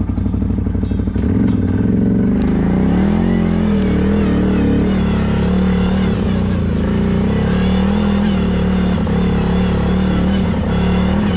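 CFMoto 1000 ATV's V-twin engine pulling up a climb: it revs up about a second in, then holds a steady, slightly wavering note under load, with scattered clicks and knocks.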